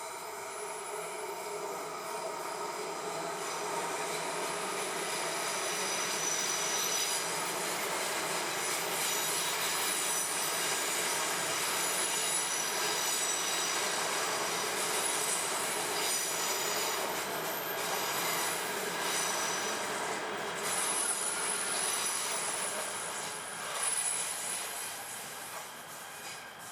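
Train brakes squealing as a train slows: several shrill high tones over the rumble of the wheels, building over the first few seconds, holding, and easing off near the end.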